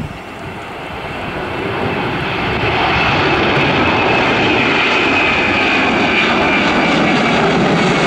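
Boeing 767-300's twin turbofan engines at takeoff thrust as the jet climbs out close overhead, growing louder over the first three seconds and then holding as a steady, loud rush with a high whine above it.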